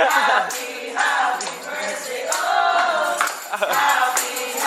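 A group of voices singing together, accompanied by a shaken tambourine: a birthday song being sung to the celebrant.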